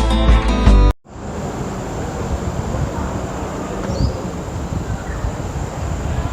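Acoustic guitar intro music that cuts off about a second in, followed by outdoor park ambience: a steady noisy wash with one thin, high, unbroken insect-like drone.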